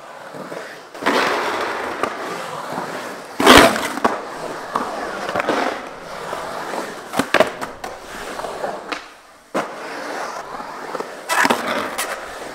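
Skateboard wheels rolling through a concrete bowl, with Independent trucks grinding the coping. There is a loud scrape about three and a half seconds in, sharp clacks around seven seconds, and another loud scrape near the end.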